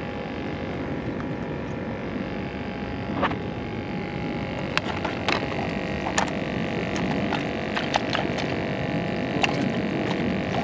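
A plastic live-bait bucket being opened and handled: a run of sharp clicks and knocks from its lid, starting about five seconds in, over a steady background hum.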